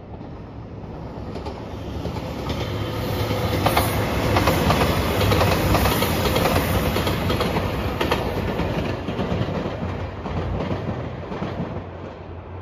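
JR Shikoku 2700 series diesel limited express train passing, its rumble swelling to a peak about midway and then fading, with the wheels clicking over the rails.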